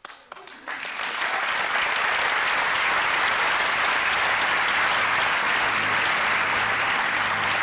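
Theatre audience applauding: a few scattered claps at first, swelling within the first second into steady applause. Low music notes begin faintly underneath near the end.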